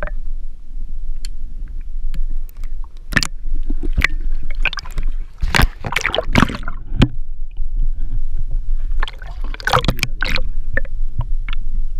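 Water sloshing and gurgling around an underwater camera: a steady low rumble with scattered knocks, and louder bursts of splashing about halfway through and again toward the end.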